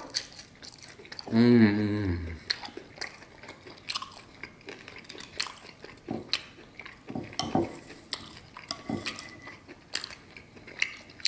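A steak knife and fork clicking and scraping on a ceramic plate while cutting a steak, with close-up chewing. About a second and a half in, a drawn-out wavering vocal hum from the eater is the loudest sound.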